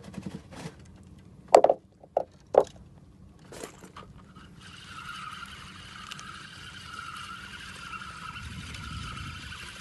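A few sharp knocks in the first three seconds, then a boat's motor comes in about halfway through and runs steadily with a wavering drone.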